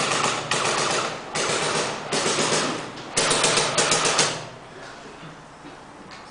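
Airsoft guns firing on full auto: about five bursts of rapid clacking, one after another, stopping about four seconds in.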